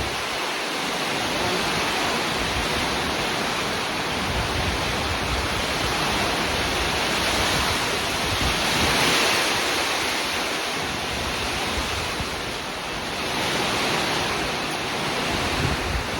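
Rain falling in gusting wind: a steady hiss that swells for a few seconds around the middle.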